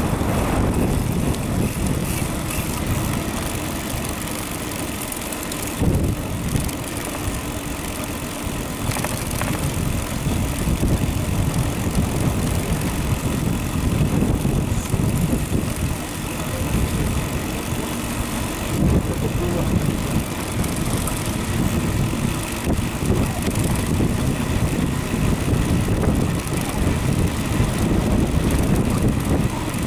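Wind buffeting the microphone of a camera on a moving bicycle: a deep, uneven rush of noise that keeps on without a break.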